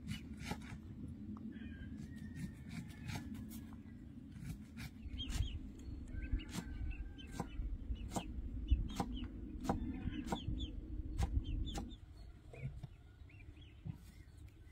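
Chickens clucking and chirping, mixed with scattered short sharp clicks and a low steady rumble that eases off near the end.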